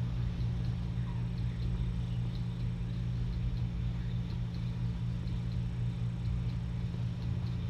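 Steady low electrical hum, with faint quick clicks of a kitten lapping wet food and one faint short chirp about a second in.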